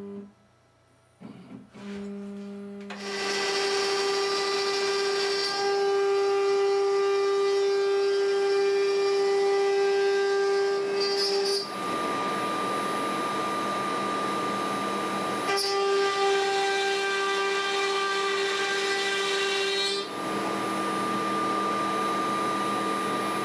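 ShopBot Desktop CNC router spindle starting about two seconds in, then cutting into a white oak board: a steady whine over a loud rushing noise of cutting and dust extraction. The sound shifts briefly about twelve and twenty seconds in as the cut changes.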